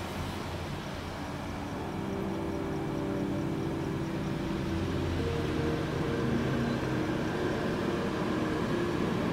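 Soft background music of long sustained notes that change pitch every second or two, over a low steady car-cabin rumble.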